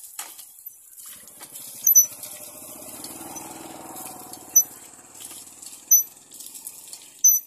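Cast-iron hand pump worked by hand, its handle giving four short, high squeaks, a stroke about every second and a half, with water splashing from the spout. A low hum swells and fades in the middle.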